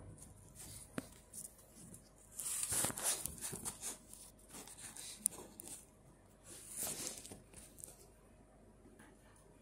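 Handling noise from the camera being gripped and repositioned: fingers and skin rubbing close to the microphone in two rustling bursts, with a few sharp clicks.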